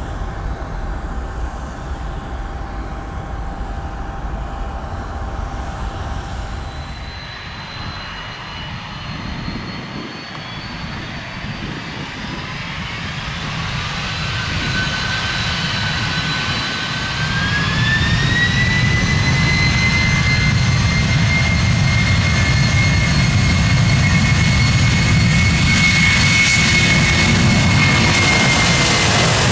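Jet airliner engines. First comes a steady, more distant jet noise. After a change about a third of the way in, a Boeing 767-300ER's turbofans spool up to takeoff thrust: a whine that rises and then holds steady, growing louder.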